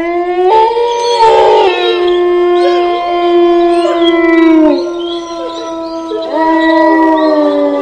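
Several long, overlapping howls held on steady notes. They slide down and fade about five seconds in, then rise again a second or so later.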